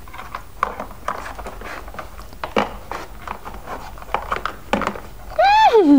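Small plastic toy pieces being handled and set down: a scatter of light clicks and taps. Near the end, a person's voice rising and falling in pitch.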